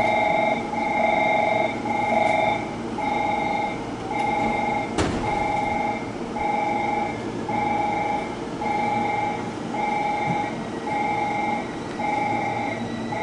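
Repeating electronic beep, about three beeps every two seconds, over the low hum of a JR West 223 series electric train standing at the platform with its doors open. A single sharp click about five seconds in.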